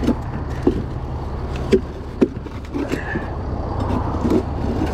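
A crowbar prying at a steel cash drawer makes a few sharp metal knocks, the loudest about two seconds in. Under them runs the steady low rumble of an idling vehicle.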